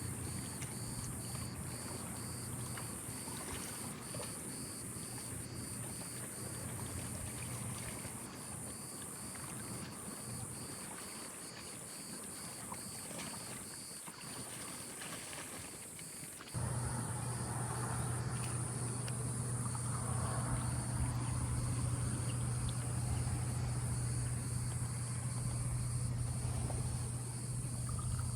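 A continuous high-pitched chorus of cicadas. About halfway through, a steady low motor hum starts abruptly and runs alongside it.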